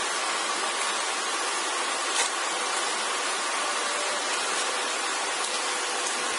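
Steady hiss of background noise with a faint, even hum line through it and one soft click about two seconds in.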